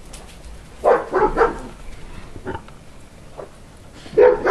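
Dogs barking in short barks, a quick run of barks about a second in, a couple of single barks, and another run near the end.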